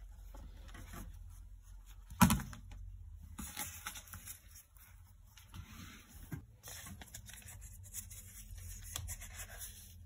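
Plastic laundry-product tubs and bottles being handled on a cupboard shelf. There is one sharp knock about two seconds in, then faint rustling, scraping and small clicks.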